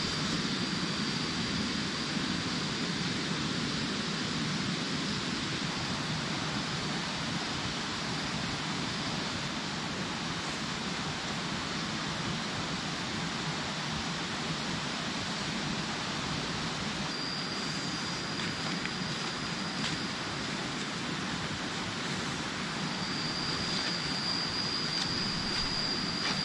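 Steady tropical forest ambience: an even rushing hiss, with a thin high steady insect drone near the start and again from about two-thirds of the way in, loudest near the end.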